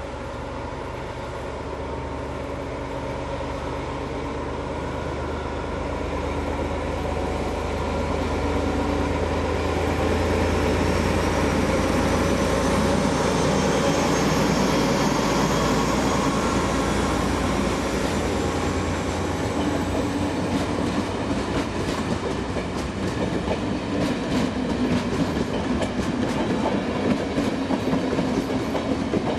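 Diesel locomotive of the Italian State Railways (FS) hauling a passenger train, its engine growing louder as it draws near and passes close about halfway through. The coaches then roll by with a rapid clickety-clack of wheels over rail joints.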